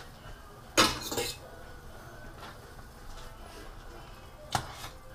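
Metal spoon clinking against a metal camping mug of soup while stirring: a loud clatter about a second in and a shorter clink near the end.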